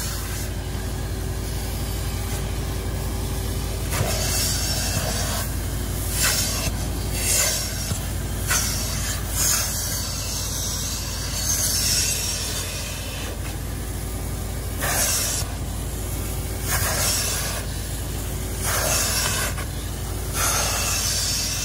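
Carpet extractor's vacuum motor running steadily while its handheld upholstery tool sprays and sucks across a fabric car seat, giving repeated hissing strokes every couple of seconds.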